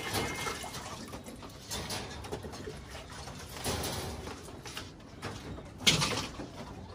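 Domestic pigeons cooing in a loft, under the scattered knocks and clatter of pigeon drinkers being handled and set into the nest boxes. One louder knock comes about six seconds in.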